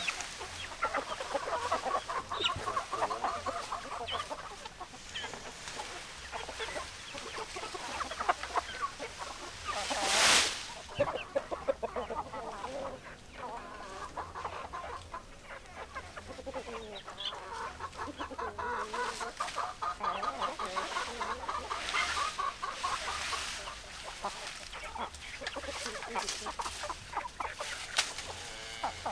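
A flock of hens clucking continually, many short calls overlapping, with a sudden loud rushing noise lasting about half a second around ten seconds in.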